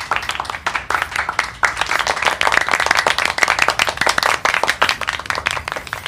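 Applause: a dense, steady patter of many hand claps.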